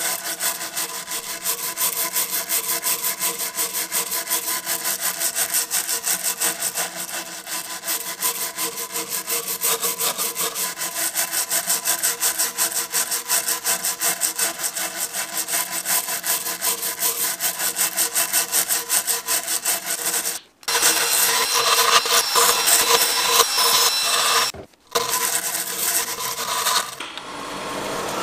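Hand-held steel wire brush scrubbing bark off the waney edge of an elm board, in quick, even back-and-forth strokes of dry scratching. The strokes break off briefly twice in the last third.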